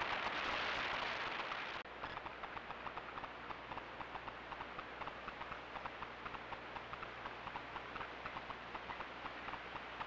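A steady hiss that cuts off abruptly about two seconds in, then a run of short soft clicks, several a second, from a roe deer drinking at the icy water's edge.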